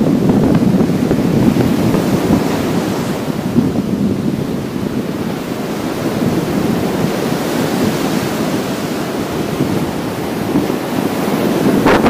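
Small sea waves breaking and washing up a sandy beach in a continuous surf wash, with wind rumbling on the microphone.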